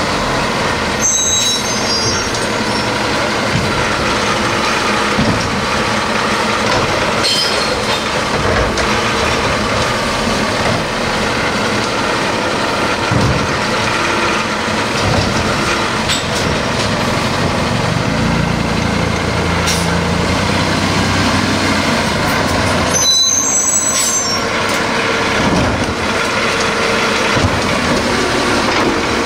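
Diesel engine of a 2018 Peterbilt 320 side-loading recycling truck running as it creeps up to the curbside carts, with brief high-pitched brake squeals about a second in and again near the end. Near the end the Labrie Expert Helping Hand's hydraulic arm lifts a cart.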